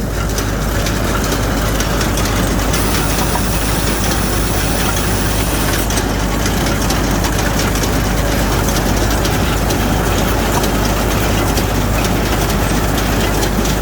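Straw baler and the engine driving it running steadily, a loud continuous machine noise.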